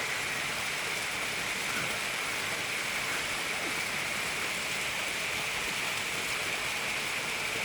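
Steady rushing of a mountain stream, even and unbroken, with a constant high-pitched hum laid over it.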